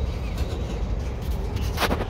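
Slow-rolling freight train passing close by: a steady low rumble, with a few faint clicks and one sharp click near the end.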